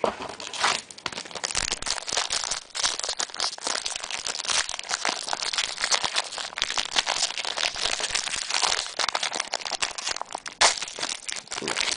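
Crinkling and crackling of a trading-card pack's wrapper being torn open and handled.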